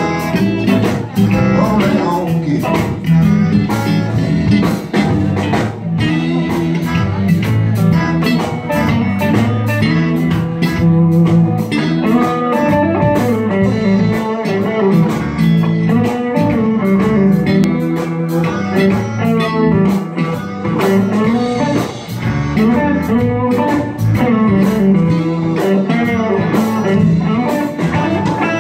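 Live blues band playing, with an electric guitar taking the lead over a low bass line and a steady drum beat.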